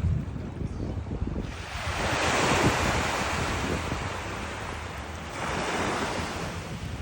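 Sea waves rushing, one surge building about a second and a half in and fading away, and a second one swelling about five and a half seconds in, with wind buffeting the microphone.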